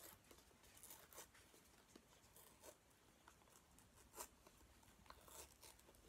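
Faint scattered crinkles and small tearing ticks as a plastic chewing-tobacco pouch is torn open by hand, otherwise near silence.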